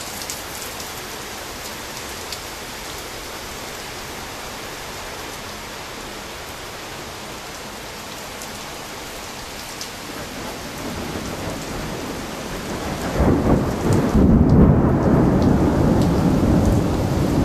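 Steady rain, then a roll of thunder that builds from about ten seconds in into a loud, low rumble.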